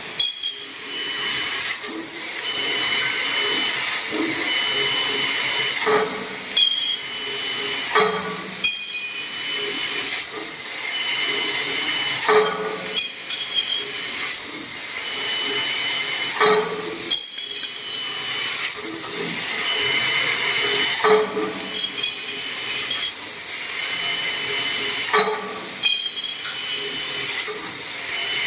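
Laser cutting machine running, a steady hiss with a faint high whine, with a short loud clatter about every four seconds as the machine works through a repeating cycle.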